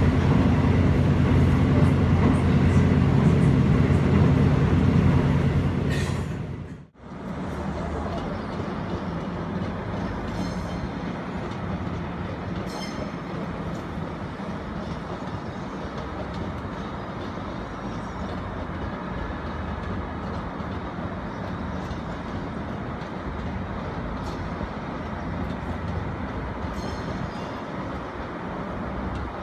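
Korail metro train running, heard from inside the passenger car: a loud, steady low rumble. It cuts off about seven seconds in and gives way to a much quieter, steady distant background noise with a few faint high ticks.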